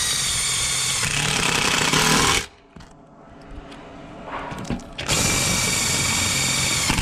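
Cordless impact driver driving stainless self-tapping screws through an aluminum solar mounting rail into the splice inside it. It runs twice: once for about two and a half seconds, then, after a short pause, again from about five seconds in.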